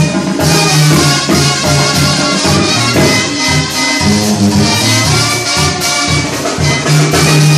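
Loud live Mexican banda music: a brass section with trumpets and trombones over a repeating low bass line and a regular drum beat.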